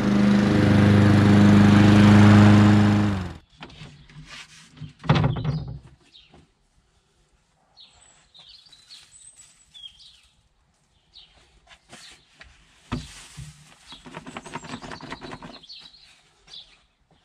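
Hayter petrol lawn mower engine running steadily, then cut off suddenly about three seconds in. After that come knocks from the plastic grass box and rustling as grass clippings are tipped into a compost bin, with birds chirping.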